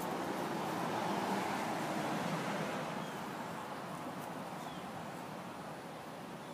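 Steady outdoor rushing noise that swells over the first couple of seconds and then eases off, with a few faint, short bird chirps.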